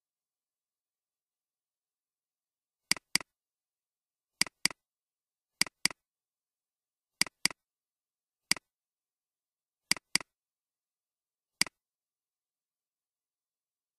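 Computer mouse clicks: five quick double-clicks and two single clicks, starting about three seconds in, with dead silence between them. The double-clicks open folders in a file-open dialog.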